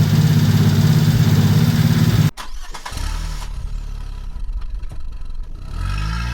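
The golf cart's 125cc single-cylinder gas engine running steadily. The sound cuts off suddenly about two seconds in, and a quieter engine sound follows that rises in pitch near the end.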